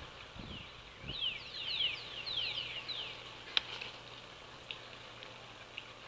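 A songbird singing a quick run of about a dozen down-slurred whistled notes lasting about two seconds, followed by a few fainter single chirps. A single sharp click sounds about halfway through.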